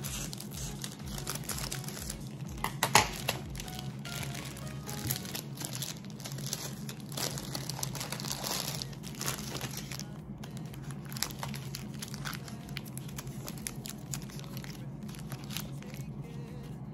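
Plastic candy-bar wrappers crinkling as wrapped chocolate bars are handled and set down, in many short crackles, the loudest about three seconds in.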